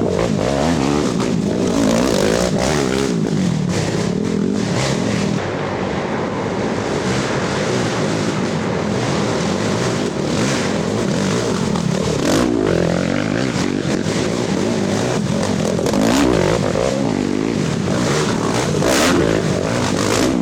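Racing ATV engines revving hard, their pitch rising and falling over and over as the quads accelerate and back off.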